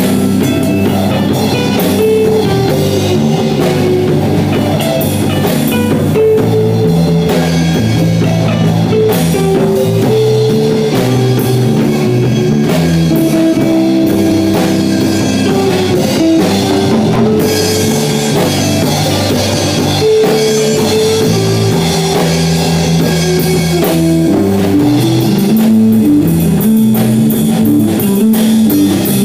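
A live instrumental rock jam: drum kit and electric guitars playing together, loud and steady, with no singing.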